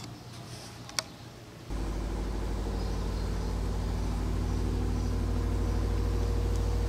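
A single sharp click, then a steady low engine hum, like a motor idling, that starts suddenly about two seconds in and grows slightly louder.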